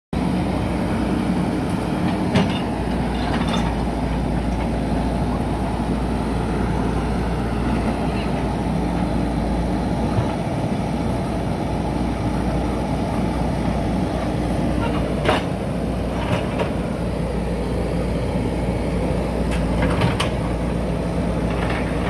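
JCB 3DX backhoe loader's diesel engine running steadily under load while the backhoe arm works, with a few sharp knocks and cracks as the bucket breaks up a brick wall.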